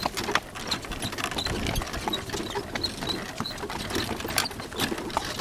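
A horse's hooves clip-clopping on a dirt road, with the horse-drawn cart and its harness rattling and clicking.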